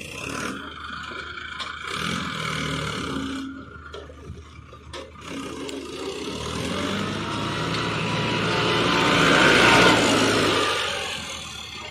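Mahindra Arjun Ultra-1 605 DI tractor's diesel engine running as the tractor drives past close by, growing louder to a peak about ten seconds in, then fading.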